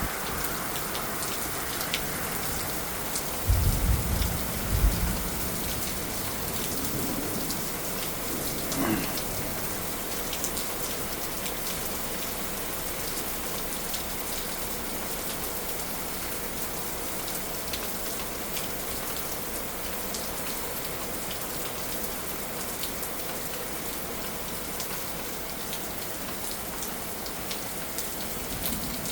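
Heavy rain falling steadily, a dense hiss full of fine drop patter. A brief low rumble sounds about four seconds in.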